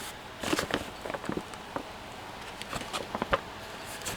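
Canvas field pack being handled: scattered soft rustles and light clicks, with a cluster about half a second in and more around three seconds.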